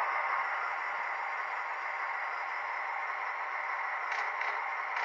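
Model train coaches rolling along the layout track: a steady whirring rush of wheels on rail, with a few faint clicks near the end.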